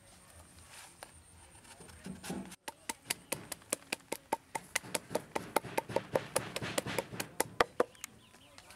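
A wooden pestle knocking in a quick, even series of sharp strikes, about four a second, starting about three seconds in and stopping shortly before the end.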